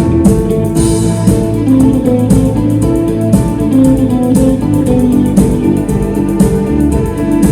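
Instrumental symphonic rock played live: guitar with a symphony orchestra, over a regular drum beat.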